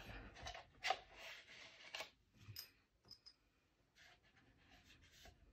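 Faint handling sounds: a few soft scrapes and light clicks, mostly in the first three seconds, as small metal spray-gun parts are handled in a plastic cup of water.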